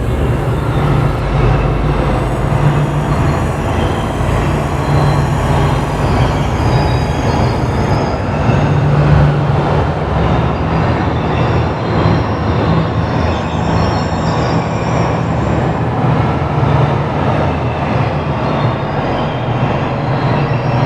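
Synthesized ambient sound-effect drone: a dense, steady rumble over a low hum, with scattered high whistling tones, much like a train's rumble and wheel squeal.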